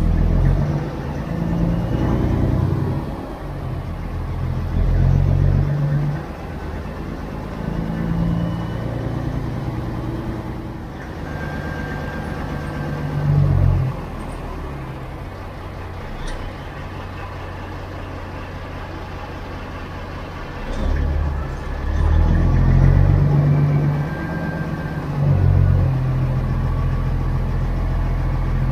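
Kenworth W900 semi truck's diesel engine running as the truck moves slowly, with the throttle opening and easing off in several surges, the loudest about three quarters of the way through.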